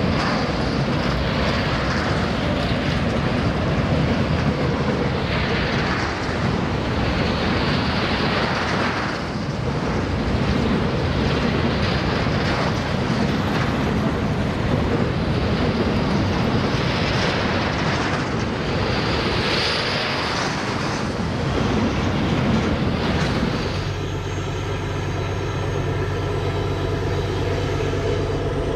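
Freight train of hopper cars rolling past, a steady rumble of steel wheels on rail with recurring surges of clatter every few seconds. About 24 seconds in, it changes abruptly to the steady drone of diesel locomotives approaching.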